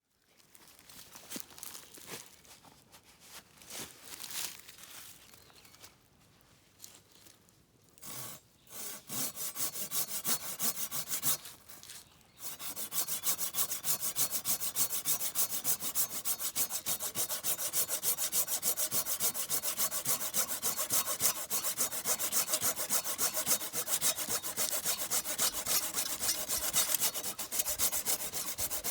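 Hand saw cutting through wood, a few hesitant strokes at first, then settling about twelve seconds in into fast, steady back-and-forth sawing.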